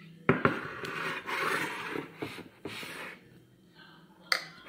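A glass mixing bowl and a porcelain platter handled on a kitchen counter: two sharp knocks close together as the dishes are set down, then a couple of seconds of rubbing and scraping as the thick dressed salad is worked out of the tipped bowl onto the platter, and one more sharp knock near the end.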